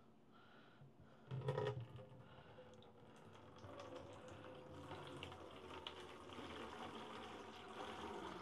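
Water being poured from a container through a fine mesh sieve: a steady splashing trickle with small ticking drips that builds from about three seconds in. A clunk of the container being handled comes about one and a half seconds in.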